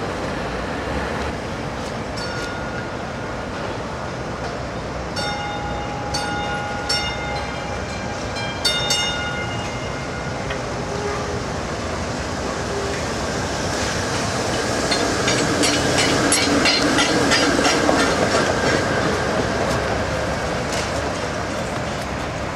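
PCC streetcars running on street track, with several short ringing tones from the car early on. About two-thirds of the way through a car passes close, louder, with rapid clicking of the wheels over the rails, then fades.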